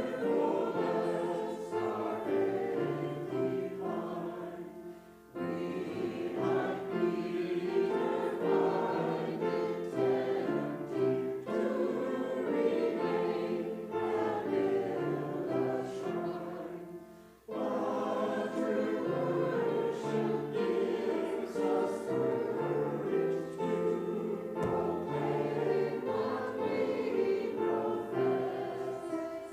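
A group of voices singing a hymn together in sustained phrases, with two short breaks between phrases, about five and seventeen seconds in.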